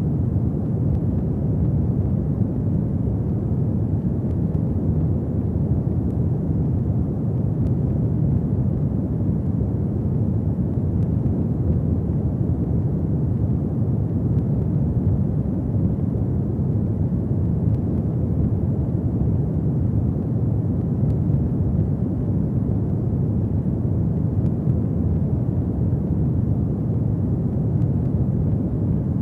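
Fireplace ambience: a steady low rumble of a burning fire, with a few faint crackles scattered through it.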